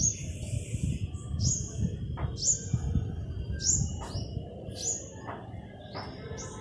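A bird chirping over and over, short high notes that fall in pitch, about one a second, over an uneven low rumble.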